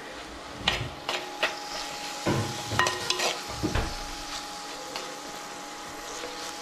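A steel spoon scrapes and knocks against an earthenware clay pot while sliced onions are stirred, frying and sizzling in oil. The knocks come thick for the first few seconds, then the stirring turns lighter.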